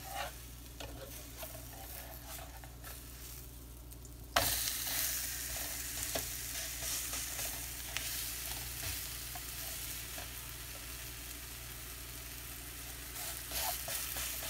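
Chickpea-flour pancake being turned on a hot flat griddle (tawa): a metal spatula scrapes and pushes under it, then about four seconds in a loud sizzle starts suddenly as the raw batter side lands on the hot oiled pan, and it keeps sizzling while the spatula presses it.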